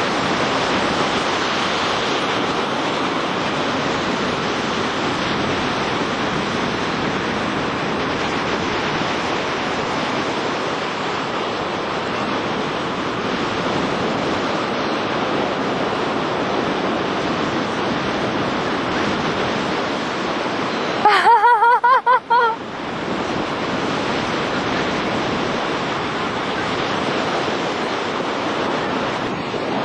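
Steady rushing wind noise. About two-thirds of the way through, a short warbling tone about a second and a half long, wavering rapidly in pitch, stands out as the loudest sound.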